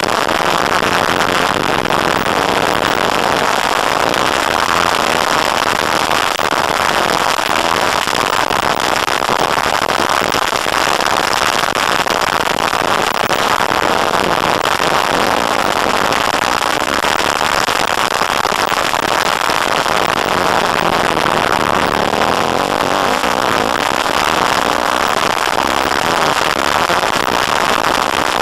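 Off-road motorcycle riding fast on a dirt track, heard from an onboard camera: the engine and wind on the microphone blend into one steady, loud, distorted rush with no breaks.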